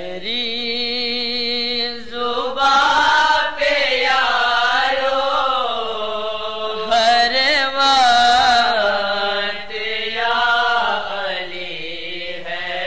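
A single voice singing a manqabat, an Urdu devotional song in praise of Ali in the Dawoodi Bohra marasiya style, drawing out long held notes that waver and glide, loudest at two peaks in the middle.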